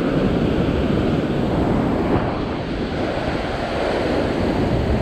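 Rough surf breaking and washing over a rock ledge, a steady rush of white water.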